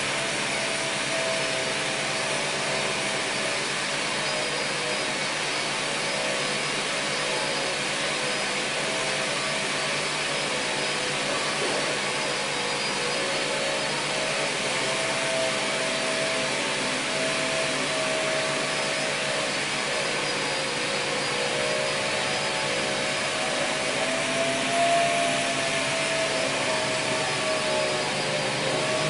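An electric motor running steadily with a loud rush of air and a whine that drifts slightly in pitch.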